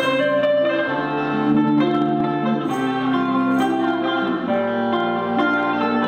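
Live music from acoustic guitar and sape (Sarawakian boat lute), plucked strings playing a melody with held notes over a steady bass note.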